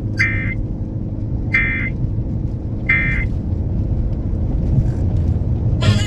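Three short bursts of Emergency Alert System end-of-message data tones, each about a third of a second long and spaced a little over a second apart, played through the car radio speakers. A steady low hum from the car runs underneath.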